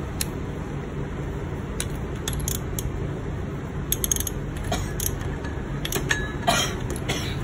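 Socket ratchet clicking in short spells as it turns the Aprilia RSV4 engine's crankshaft over by hand, with sharp metal clinks, while the cam timing is being set; a steady low hum runs underneath.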